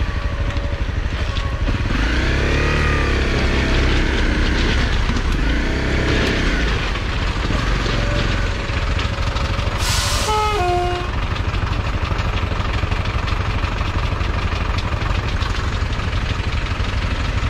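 Dual-sport motorcycle (Honda CRF250L, a single-cylinder 250) being ridden off-road, its engine running under a constant low rumble. The revs rise and fall twice in the first several seconds. About ten seconds in there is a brief sharp sound with a falling tone.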